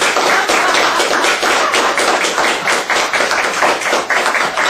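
Applause from a small audience: many hands clapping steadily, with individual claps standing out.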